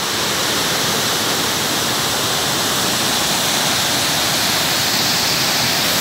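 Waterfall of several cascades, whitewater running over rock slabs: a steady, even rushing of falling water.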